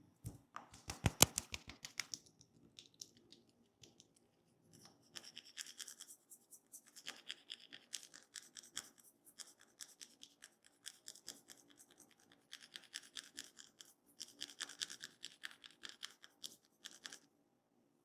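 Hands working on a person's head: a quick run of taps about a second in, then rapid, rhythmic scratching and rubbing of fingers through the hair and scalp in several spells.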